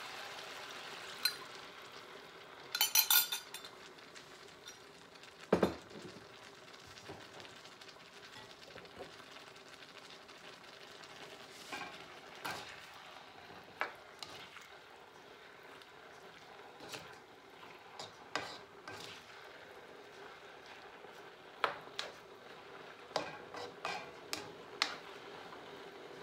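Cornstarch sauce sizzling as it is poured into a hot wok of beef, broccoli and mushrooms, the sizzle dying down over the first few seconds. A spatula then stirs and turns the food, with scattered clicks and knocks of utensil against the pan.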